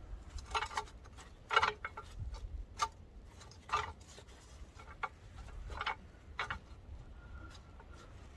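Irregular sharp metal clinks and taps, about eight of them, as steel bushings and bolts are worked into a skidsteer track by hand.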